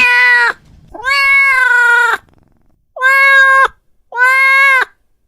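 Domestic cat giving loud, drawn-out meows: the end of one call, then three more, each about two-thirds of a second to a second long and held at one pitch, with short pauses between them.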